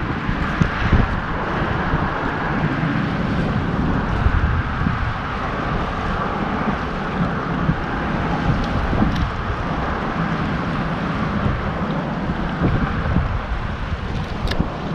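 Wind buffeting the microphone in gusts over a steady rush of wind and water, with a light click near the end.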